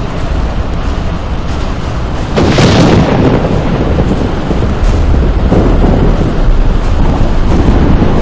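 A loud crack of thunder about two and a half seconds in, rolling on as a rumble over a steady low roar.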